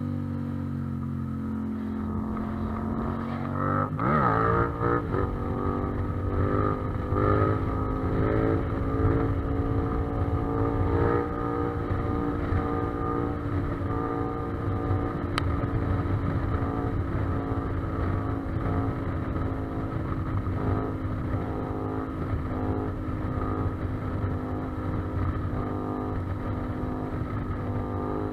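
Yamaha MT-07 parallel-twin engine at riding speed: the revs dip and climb sharply about four seconds in, rise a few more times over the next several seconds, then hold steady, with a low rush of wind underneath.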